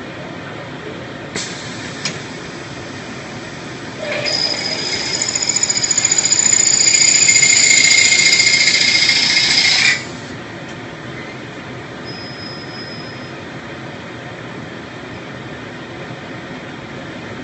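CNC plasma cutting and drilling machine at work over a steady mechanical hum. Two sharp clicks come in the first couple of seconds. About four seconds in, a loud high-pitched whine with hiss starts, builds for several seconds and cuts off suddenly about ten seconds in.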